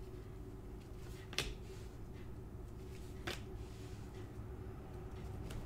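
Hockey trading cards being handled and flipped off a stack in gloved hands, quietly, with two sharp card snaps, about a second and a half in and again a little after three seconds, over a faint steady hum.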